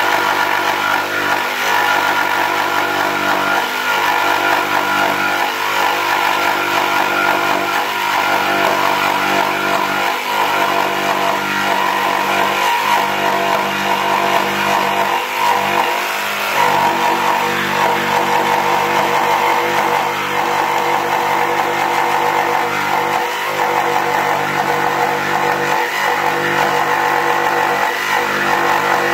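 Mafell P1cc jigsaw running under load as its blade rips lengthwise along a timber board, guided by an edge fence. The motor's pitch holds steady, with brief dips every second or two.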